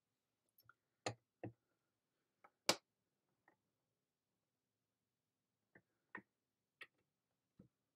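Irregular light plastic clicks and taps, about eight of them, the loudest a little under three seconds in, as a stamping platform's clear hinged lid is swung down over the card.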